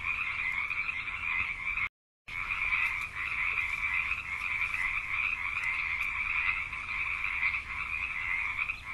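A dense, unbroken chorus of many frogs calling, which drops to silence for a split second about two seconds in.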